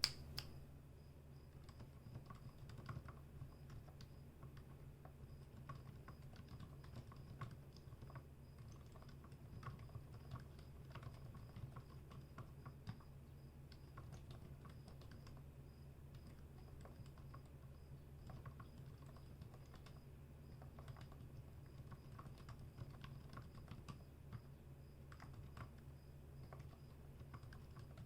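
Steady typing on a custom 60% mechanical keyboard with lubed Gateron Silent Black linear switches, steel plate, PBT keycaps and a rosewood case. The keystrokes are faint, soft clicks in an uneven run, over a low steady hum.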